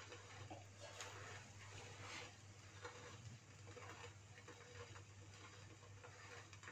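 Faint, irregular crackle of egg and bread frying in ghee in a nonstick pan, as a wooden spatula presses the bread down, over a low steady hum.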